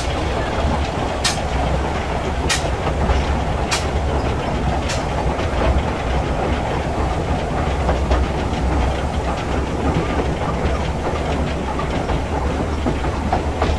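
Two-foot-gauge O&K steam locomotive running, heard from its footplate: a steady rumble, with sharp clicks of the wheels over rail joints about once every second and a bit that stop about five seconds in.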